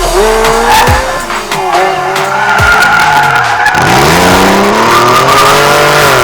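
Supercar engines revving, rising and falling in pitch several times, with tyres squealing.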